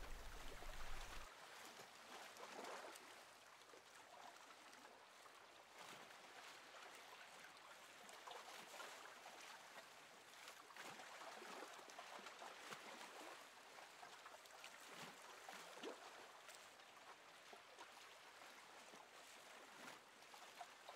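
Near silence: faint room tone, a soft steady hiss.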